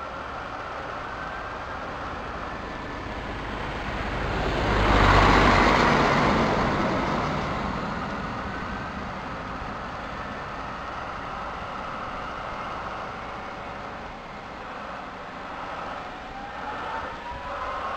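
MÁV M62 'Szergej' diesel locomotive, a two-stroke V12, running while shunting with freight wagons. Its engine swells to a loud peak about five seconds in, then settles back to a steady run. Near the end a whining tone rises and falls.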